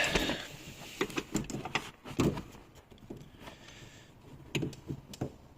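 Scattered clicks and knocks from the door handle mechanism of a 2022 Opel Insignia as its stiff release part is pushed in by hand with force. The loudest knock comes about two seconds in.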